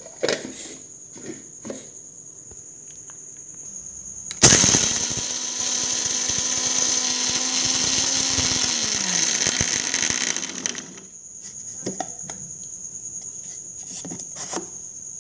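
Kitchen mixer grinder grinding dry roasted gram to powder. It starts suddenly about four seconds in, runs for about six seconds with a steady hum, and the hum drops in pitch before the motor stops.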